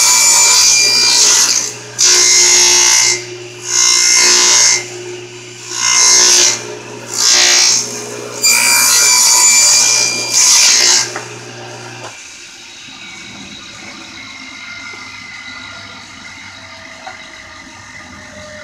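Saw cutting wood in about seven loud, noisy strokes or passes, each roughly a second long, with a low hum under them. Both stop abruptly about twelve seconds in, leaving quieter workshop sound.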